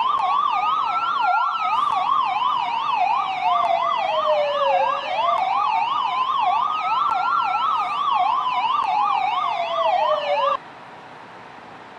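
Police car siren with two tones sounding together: a fast yelp swinging up and down about three or four times a second and a slow wail rising and falling every six seconds or so. It cuts off suddenly near the end, leaving a faint hiss.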